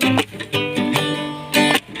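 Acoustic guitar strummed in rhythmic chords, with a couple of short breaks between strums.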